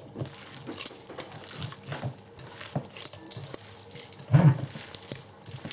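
Hand squishing and kneading sticky tamarind pulp in a bowl: soft wet squelches with light clicks and crackles, and one louder low thump about four and a half seconds in.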